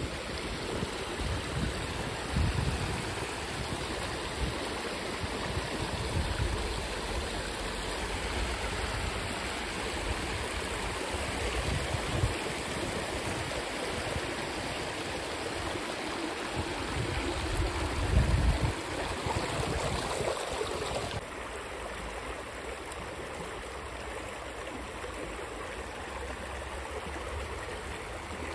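Steady rushing of running water, like a stream, with a few low thumps of wind on the microphone. The higher part of the rush drops away abruptly about two-thirds of the way through.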